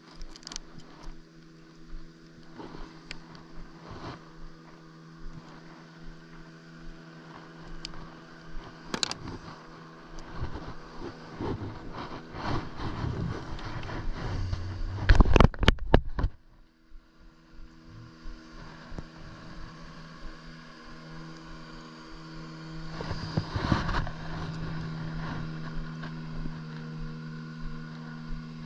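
Steady hum of a motorboat engine out on the water, swelling briefly about two-thirds of the way in. Close rustling and knocks of hands handling bait and tackle, loudest a little past halfway.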